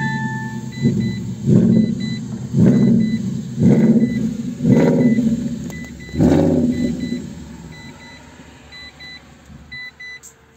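Synthetic V8 engine sound from a sound generator fitted to a Peugeot iOn electric car, revved in six quick blips about a second apart, then dying away. Short high beeps repeat throughout.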